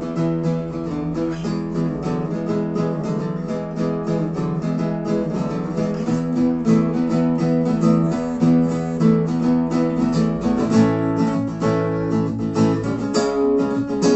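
Acoustic guitars strumming chords in a quick, steady rhythm, an instrumental break in an acoustic rock song; the chord changes about ten seconds in.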